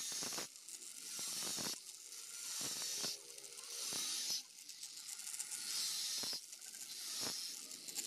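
Angle grinder's cutting disc slicing through welded wire mesh: a run of hissing swells, each one to two seconds long, with short dips between as the disc works along the wires.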